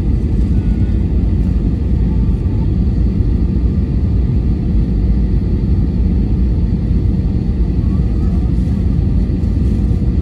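Steady low rumble of an Airbus A320 heard from inside the passenger cabin: engine and airflow noise, even throughout, with a faint steady hum above it.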